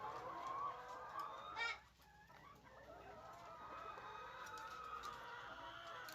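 Faint background animal calls, with one sharper, louder call about a second and a half in.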